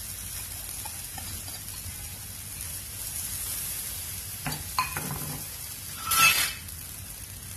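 Spinach batter sizzling on the hot plate of an electric waffle maker, a steady hiss. A couple of light knocks come about four and a half seconds in, and a louder short clatter about six seconds in.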